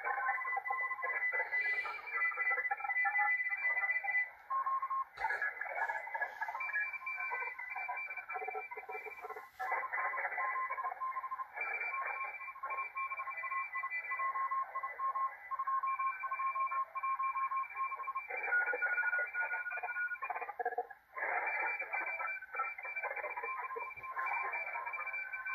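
A pileup of many Morse code (CW) stations on the 40-metre amateur band, heard through a Malachite DSP SDR receiver: several keyed beeps at different pitches sending at once over a hiss of band noise. The signals are packed too close together for the receiver's decoder to read.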